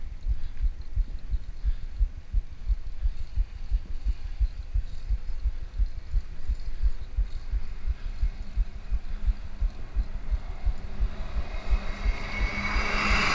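Wind buffeting a moving bicycle rider's camera microphone, a rapid low thumping. In the last few seconds a bus comes up close alongside, and its engine noise and a steady whine grow louder.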